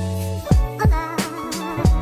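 Background R&B-style music with a deep bass drum, a bass line and sustained keys.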